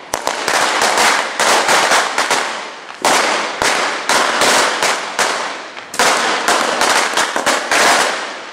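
Firecrackers going off on the ground in rapid, uneven volleys: three long runs of sharp bangs, each crack trailing off into a short echo.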